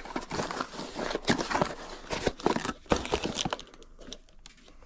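Rummaging through packaged parts: plastic packaging crinkling and rustling with irregular clicks and knocks of items being handled, busy for about three and a half seconds and then dying down.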